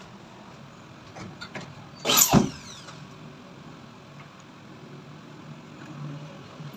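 WPC fluted ceiling panel handled and pushed into place overhead: a few light knocks, then one loud, brief scrape about two seconds in.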